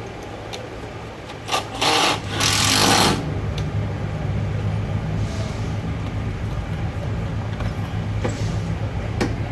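Three short bursts of loud hissing about one and a half to three seconds in. A steady low machine hum starts during them and carries on.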